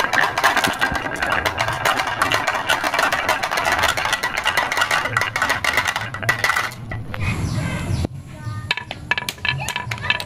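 Many marbles rolling and clattering down grooved wooden tracks: a dense run of clicks for about seven seconds, then a short falling sweep and scattered clicks.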